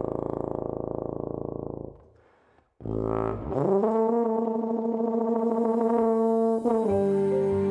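Tuba solo: a long low held note, then after a short break a quick upward run into a long held note. Near the end a soft, sustained ambient chord takes over.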